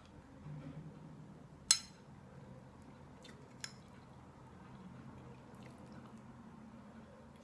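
A metal fork strikes a ceramic plate with a sharp clink that rings briefly, about two seconds in, then taps it again more lightly a couple of seconds later.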